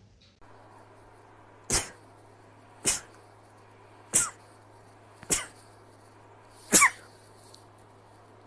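Five quick sneezes in a row, roughly one every second and a bit, each a sharp burst with a short voiced tail; the last is the loudest.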